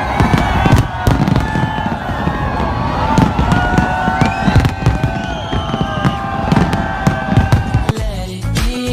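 Aerial fireworks bursting in a dense, rapid string of bangs and crackles. About eight seconds in, a pop song cuts in.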